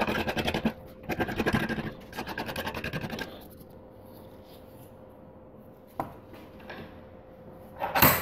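Three rasping strokes against a steel hammer head clamped in a vise, in the first three seconds. Then a faint steady hum, a small click, and a loud knock near the end.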